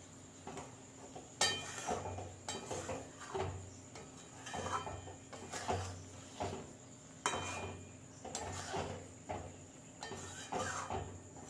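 A metal spoon scraping and clinking against a metal pan while stirring a thick, sticky mango-and-jaggery pickle, in uneven strokes about once a second with a couple of sharper clanks.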